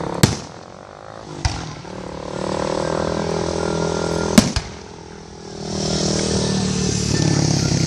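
Aerial firework shells bursting with sharp booms, four in all, the loudest about four and a half seconds in. Beneath them runs a steady low hum.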